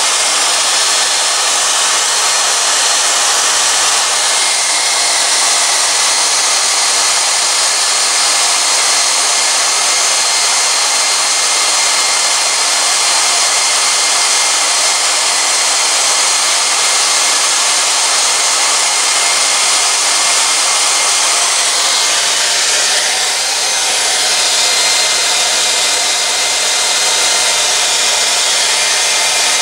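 Hand-held hair dryer running steadily on hot air, blowing onto a radio's circuit board to soften the glue holding the LCD display's ribbon cable. Its tone shifts slightly about three-quarters of the way through.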